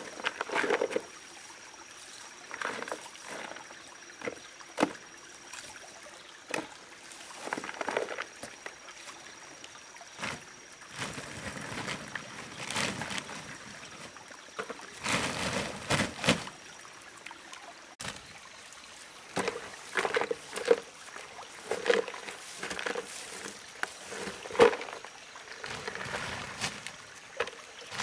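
Irregular splashing and sloshing of water, mixed with scattered knocks and short rustling sounds.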